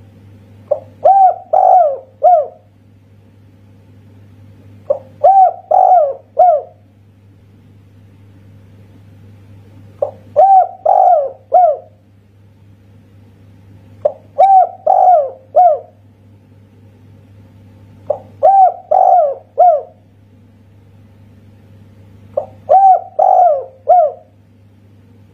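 Spotted dove (tekukur) cooing its song six times, one phrase about every four seconds. Each phrase is a quick short note followed by three coos, the last set slightly apart: the single-'kuk' ending type prized in this song style.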